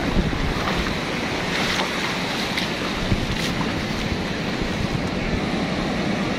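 Ocean surf washing up over a sandy beach in a steady rush, with wind buffeting the microphone.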